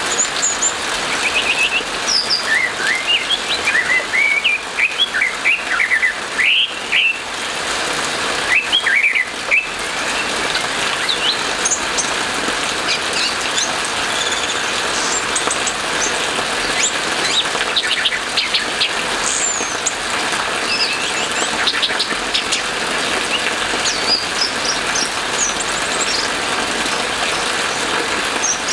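Orange-headed thrush singing a fast run of varied, gliding whistled notes for the first ten seconds or so, then softer scattered notes, over a steady hiss of rain.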